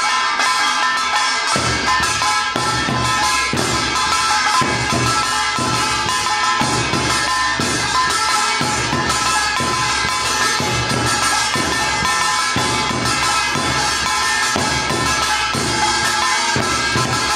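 Korean traditional folk ensemble playing an instrumental passage between verses of a work song. Drums and gongs beat a steady rhythm under a reedy wind instrument holding high notes.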